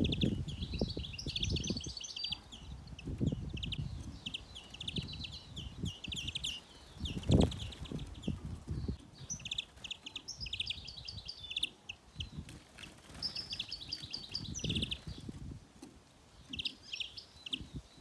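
Finches twittering in short, quick trilled phrases, one after another throughout, over low rumbles, with a louder thump about seven seconds in.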